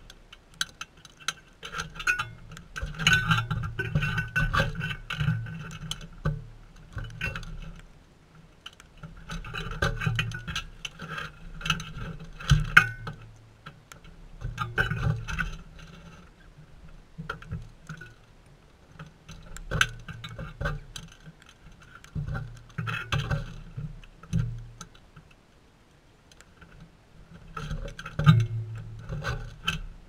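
Sulphur-crested cockatoos feeding at a metal seed feeder close by: a clutter of clicks, taps and scrapes from beaks picking and cracking seed and feet shifting on the metal rim, coming in clusters of a few seconds with short lulls between.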